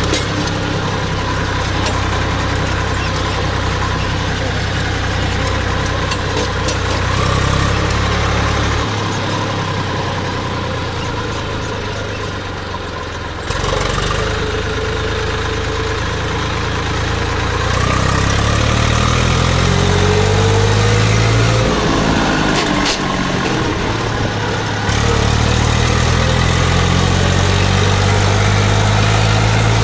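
Eicher 380 Super DI tractor's diesel engine running under way, heard from the driver's seat. Its pitch rises twice as it revs up, about two thirds of the way in and again near the end.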